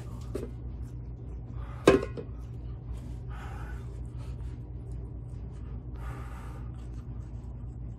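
A man's heavy breathing while in pain from extremely hot pepper jerky: two long breathy exhalations a few seconds apart, with one short, loud, cough-like sound from his throat about two seconds in. A steady low hum lies under it.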